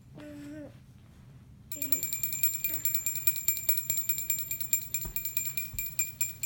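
A small bell rung rapidly and continuously, starting about two seconds in. Before it, a young child makes two short gliding vocal sounds.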